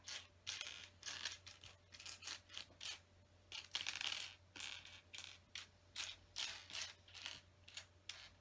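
Small plastic LEGO pieces clicking and clattering against each other as a hand sifts through a pile of loose parts. The clatter comes in quick irregular bursts, busiest about halfway through.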